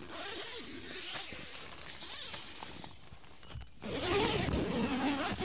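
Tent door zipper being unzipped in two long pulls with a short pause between them. The second pull is louder.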